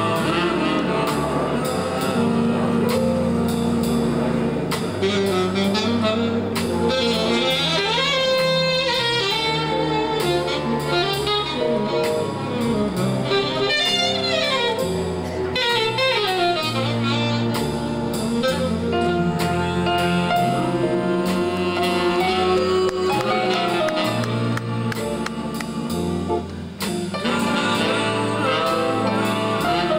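Big band jazz played live by a large ensemble of reeds, trumpets, trombones, French horn, tuba, piano, guitar, bass and drums, with a saxophone out front. The saxophone plays quick runs that rise and fall, about eight and fourteen seconds in.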